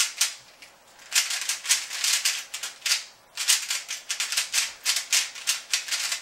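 MoYu AoLong v1 3x3 speed cube, unlubricated and straight out of the box, turned fast during a solve. Its plastic layers make dense runs of rapid clicking and clacking, broken by short pauses, including a brief lull about a second in and another about three seconds in.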